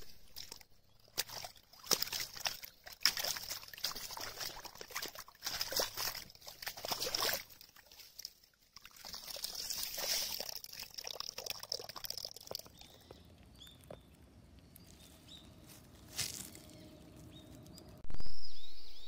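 A dip net being worked through shallow pond water, with irregular sloshing and water pouring and trickling off the mesh in two long spells. It goes quieter after that, with a sudden loud burst near the end.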